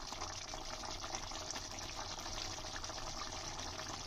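Arbi curry gravy simmering in a pan: a steady hiss with many fine crackles and pops from the bubbling liquid.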